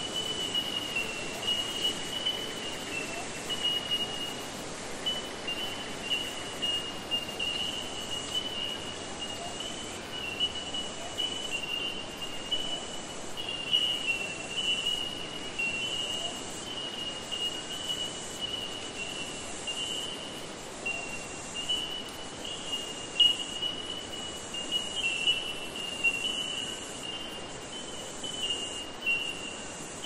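Wildlife ambience: a continuous high-pitched trill that wavers slightly in pitch, with a fainter, higher hiss pulsing about once a second.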